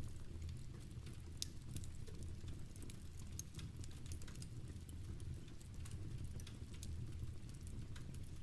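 Crackling fireplace fire and pattering rain: irregular sharp ticks and pops over a steady low rumble.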